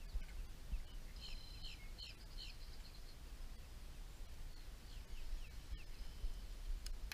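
Birds chirping: a quick run of repeated short chirps a little over a second in, and a few more short calls around five to six seconds in, over steady low outdoor background noise.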